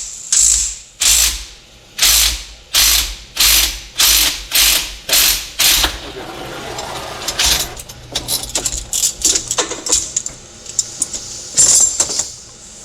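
Ratchet wrench cranked in about ten quick, even strokes, then slower irregular clicking, as the 6th gear set is worked off the G56 transmission main shaft.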